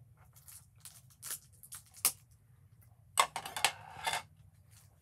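Small product packaging being worked open by hand: scattered clicks and short rustles, then about a second of dense, louder rustling a little after three seconds in.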